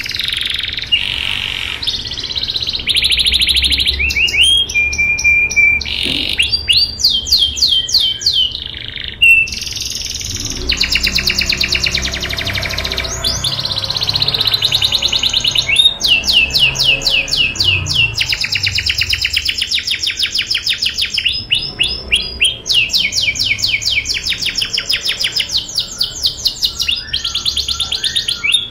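Domestic canary singing a long, unbroken song of rolling trills: fast-repeated notes, sweeping whistles and a short steady whistle, changing phrase every second or two.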